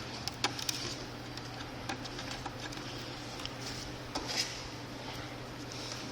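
Scattered light clicks and scrapes of a tool prying a glued-in charge port loose from an e-bike battery's bottom case, with a faint steady hum underneath.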